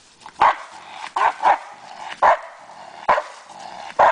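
A dog barking in a series of about six barks, roughly one every half second to second, at a decoy holding a bite sleeve: the guarding bark of a bark-and-hold exercise.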